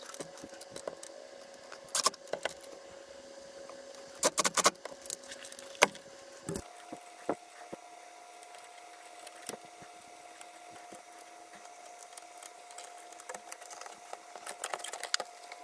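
Plastic clicks, taps and rattles from handling a disassembled cassette player boombox: its circuit boards, a knob and the plastic case parts being moved and fitted, with a quick cluster of sharp clicks about four seconds in. A steady tone sounds underneath and shifts slightly higher in pitch about halfway through.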